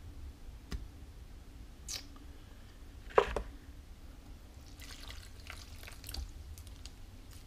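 Scattered wet drips and small clicks of water and slip as wet hands work around clay on a spinning potter's wheel. The loudest drip comes about three seconds in, and a run of small crackles follows between five and six seconds in, all over a low steady hum from the wheel.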